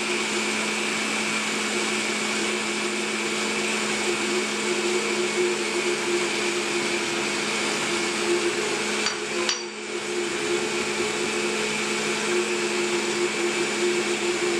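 Vitamix high-speed blender running at a steady speed, blending a thin vegetable soup until smooth. The sound dips briefly about nine and a half seconds in.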